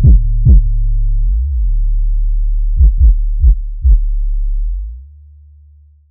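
Electronic music with a deep, sustained bass tone and booming drum-machine kick hits, two near the start and four about three to four seconds in, fading out near the end.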